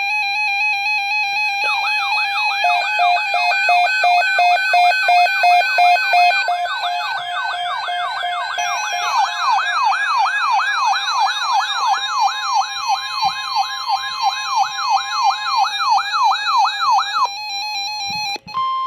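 Several electronic siren tones layered together: stepped tones alternating between pitches, joined by a fast rising-and-falling yelp at about three sweeps a second. They all cut off about 17 seconds in, and a short steady alert tone follows.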